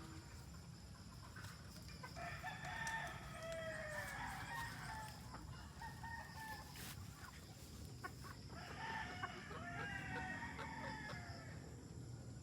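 Rooster crowing twice, each crow lasting about three seconds, the first starting about two seconds in and the second about eight and a half seconds in.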